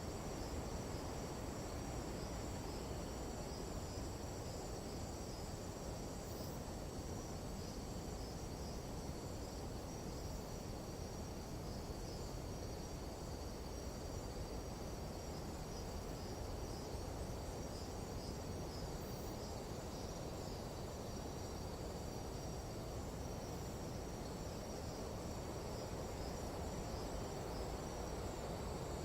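Nighttime jungle insect chorus: several steady, high, slightly pulsing trills over a steady low rush of noise.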